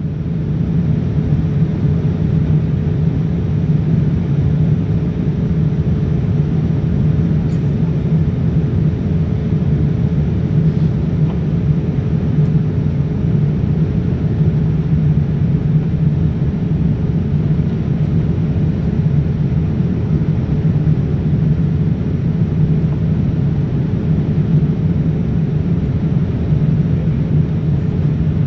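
Steady cabin noise inside a Boeing 787-9 in flight: the even rumble of airflow and its Rolls-Royce Trent 1000 engines, with a faint steady hum.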